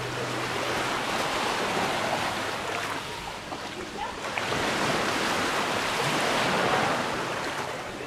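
Small Mediterranean waves washing up onto a sandy shore and drawing back, swelling twice.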